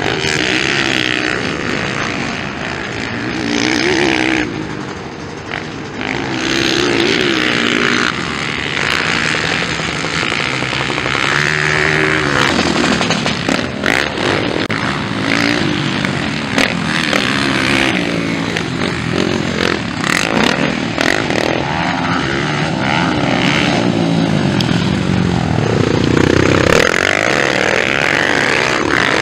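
Motocross dirt bike engines revving hard and backing off again and again, the pitch rising and falling as the bikes accelerate, jump and corner.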